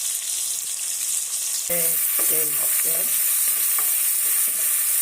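Plantain slices frying in hot oil, a steady sizzle with a spatula stirring and scraping in the pan. About a second and a half in the sizzle turns abruptly louder and brighter.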